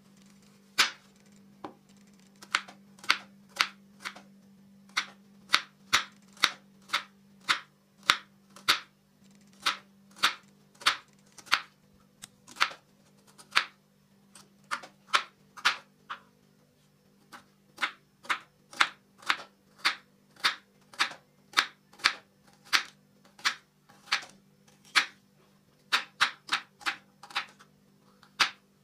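Kitchen knife slicing a red onion on a bamboo cutting board, each cut ending in a sharp tap of the blade on the wood, about two a second, with a brief pause a little past halfway.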